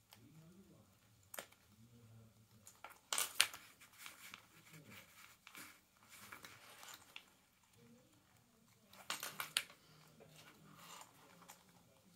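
Hands handling a clipped faux-leather wallet panel: rustling and small clicks of the plastic sewing clips, loudest about three seconds in and again about nine seconds in.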